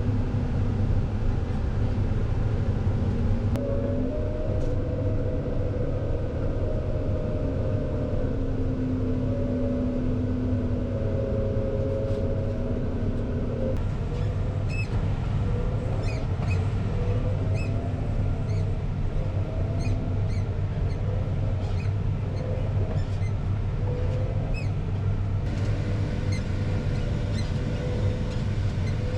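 Farm tractor pulling a grain buggy, running steadily with a deep drone and a wavering whine that shifts in pitch as it works. About halfway through, a run of small, high ticks or squeaks begins over the engine sound.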